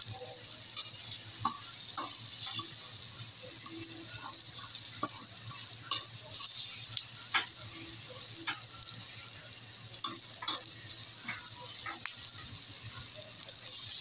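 Sliced onions and garlic sizzling in hot oil in a metal wok, with a metal spatula scraping and clicking against the pan as they are stirred. The sizzle is steady, and the spatula strikes come at irregular moments throughout.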